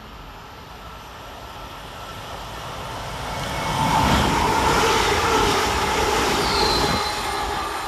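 Class 350 Siemens Desiro electric multiple unit approaching and passing close by: a rising rush of wheels on rail, loudest about four to seven seconds in, with a steady whine over it, then easing off near the end.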